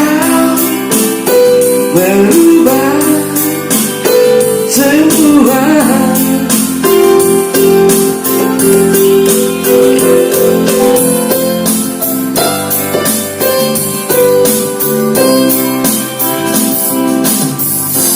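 Song outro: a sung vocal line bending in pitch over keyboard and a steady beat for the first few seconds, then held keyboard notes over the beat, stopping abruptly at the end.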